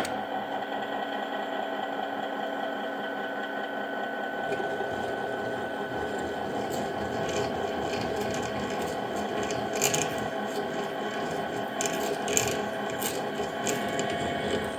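Machine spindle switching on and running steadily while a 25/64-inch drill bores out a stripped exhaust bolt hole in a cylinder head, ready for a thread insert. From about four seconds in, the cutting adds scattered sharp ticks and scrapes, loudest around ten and twelve seconds.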